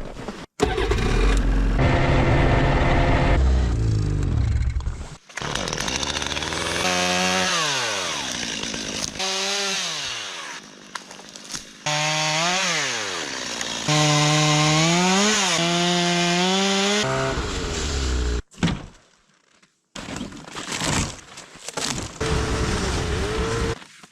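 Chainsaw cutting firewood, its engine pitch repeatedly rising and falling as it revs and settles. It comes in several short stretches that break off abruptly.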